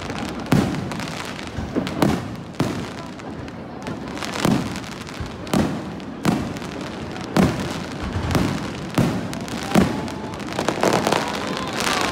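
Aerial fireworks bursting one after another, a sharp boom every second or so, each with a rumbling echo, over a steady crackle. A faint whistling tone joins in near the end.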